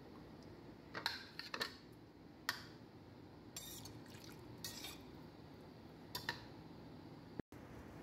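A metal spoon clinking and scraping against a stainless steel pot: about half a dozen short knocks and scrapes spread out over several seconds, faint overall.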